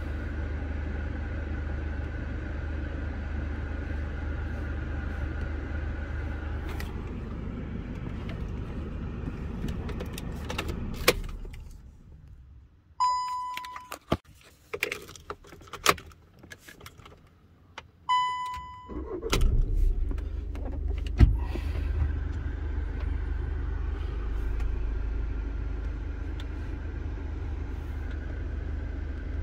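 Skoda Superb 2.0 TDI diesel engine idling, then switched off about a third of the way in. In the quiet that follows there are two short beeps with key clicks between them. The engine is restarted a few seconds later and settles back to a steady idle, restarted so the DPF service regeneration can be run again.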